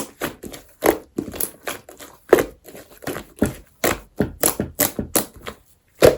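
Slime being pressed and squeezed by hand, giving a quick series of sticky clicks and pops, about two to three a second, that stops suddenly at the end.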